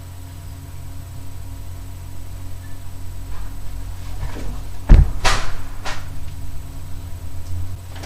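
Steady low electrical hum with a single loud thump about five seconds in, followed by a brief rustle.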